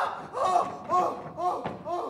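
A man giving short, high-pitched whimpering cries of fright, about two a second. Near the end there is a thump as he climbs up onto a wooden chair.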